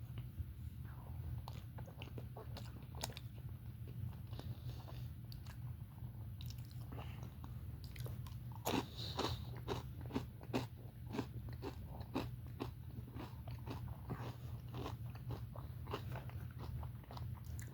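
A person chewing crunchy, well-done fried potatoes with the mouth close to the microphone: repeated crisp crunches, thickest about halfway through.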